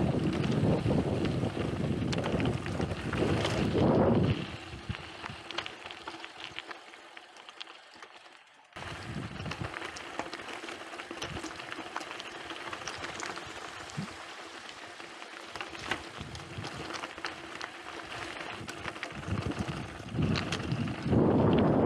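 Mountain bike rolling downhill on a gravel track: tyres crunching over loose stones with small clicks and rattles from the bike. Heavy wind rumble on the microphone for about the first four seconds.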